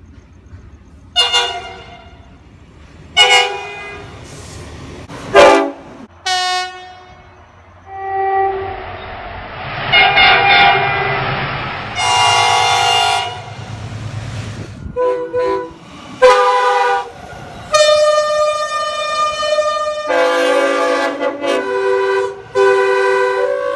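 Train horns sounding in a string of blasts. Four short toots come in the first seven seconds, then longer blasts follow close together, the horns differing in pitch from one blast to the next. A rushing noise runs under the blasts in the middle part.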